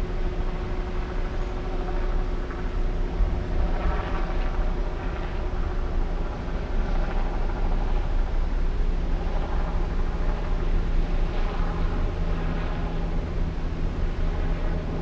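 A slow line of cars passing close by, their engines and tyres making a steady low hum that swells a little as each car goes past.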